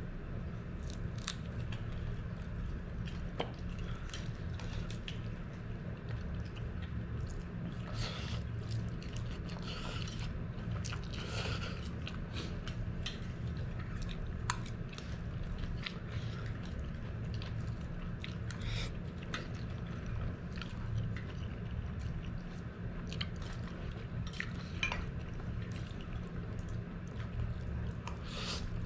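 A person eating spicy Samyang noodles mixed with stir-fried purslane: close-up chewing and slurping of noodles, with scattered clicks of a utensil against the metal pan, over a steady low hum.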